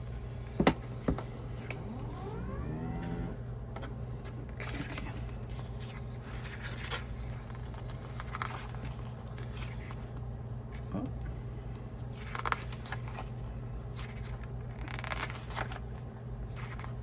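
Pages of a photo book being turned by hand, a soft paper swish every few seconds, with two light knocks near the start and a short rising squeak a couple of seconds in.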